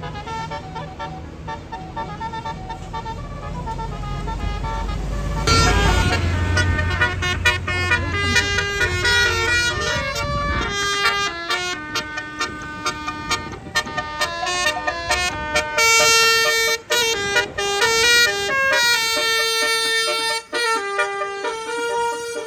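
Tour bus's Basuri telolet horn playing a stepping multi-note melody, much louder from about five seconds in, over a low engine rumble that lasts for about five seconds.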